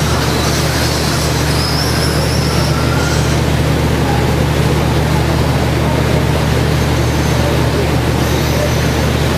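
Radio-controlled short-course racing trucks running on a dirt track: faint high-pitched motor whines rise and fall as the trucks speed up and brake, heard mostly in the first few seconds and again near the end. A steady low hum lies under it all.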